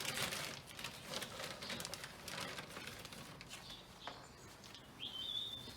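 Peanuts being poured into a bird feeder, a rapid run of clicks over the first couple of seconds, then one short bird chirp near the end.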